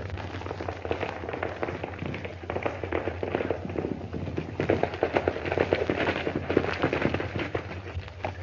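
Hoofbeats of two ridden horses approaching on hard ground: a dense, uneven clatter of hoof strikes, over a steady low hum.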